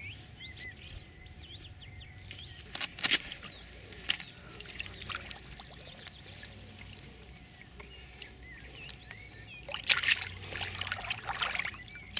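Water splashing and trickling, with sharp splashes about three seconds in and again around ten seconds, as a landed carp is handled and returned to the lake. Small birds chirp in the background.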